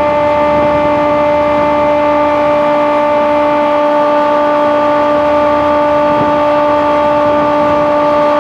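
Petra air-cooled chiller plant running with three of its four refrigeration compressors on: a loud, steady machine hum holding several pitches at once, with no change in speed.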